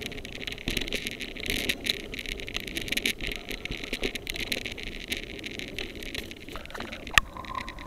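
Mountain bike rolling fast over a dirt trail: a steady rush of noise with the bike rattling over the bumps. There is one sharp knock about seven seconds in, then a steady thin whine near the end.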